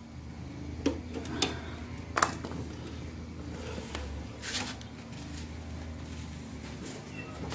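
A few sharp metallic clicks and knocks of pliers working on the axle, three in the first two and a half seconds, then a softer rustle about four and a half seconds in, over a low steady hum.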